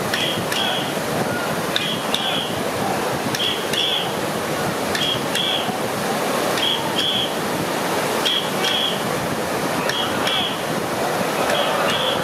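River water rushing steadily over a low weir. A short, high two-note sound repeats about every second and a half over it.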